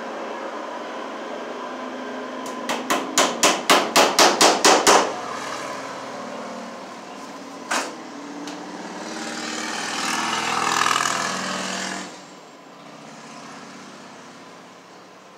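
A hammer tapping a cable staple into a wooden framing board over electrical cable: about a dozen quick blows in roughly two seconds. Then a single click and a swell of noise lasting about three seconds.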